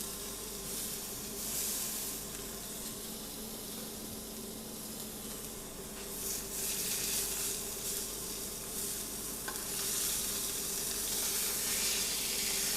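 Lamb rump sizzling in a hot frying pan as it sears, its fat rendering while it browns on all sides. The sizzle swells louder now and then, loudest in the last few seconds.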